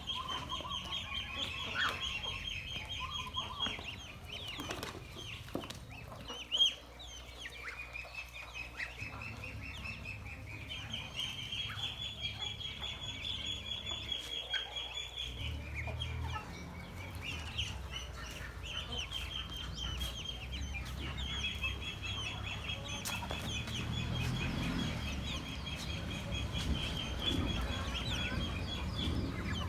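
A flock of ducklings peeping continuously in a dense, high-pitched chorus of rapid calls, with a single knock about six seconds in.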